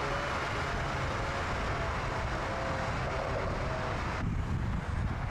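Volkswagen Golf R Variant's turbocharged 2.0-litre four-cylinder running at speed, a faint engine note under a steady rush of tyre and wind noise. The sound changes abruptly about four seconds in.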